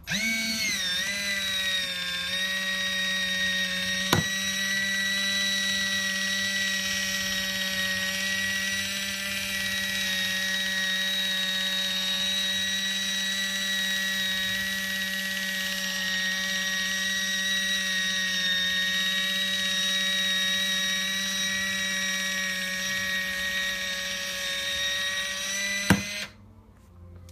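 Battery-powered automatic electric can opener running by itself around a can, a steady motor whine that dips in pitch as it starts and then holds even. There is a click about four seconds in, and near the end it clicks and stops on its own as the cut is finished.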